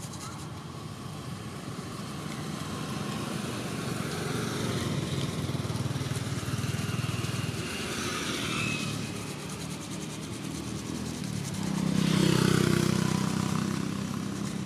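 Motor vehicle engines going by, one swelling loudest about twelve seconds in as it passes.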